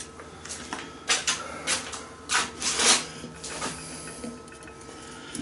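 A blade cutting into a plastic pipe sleeve in a series of short scraping strokes, the longest about two and a half seconds in.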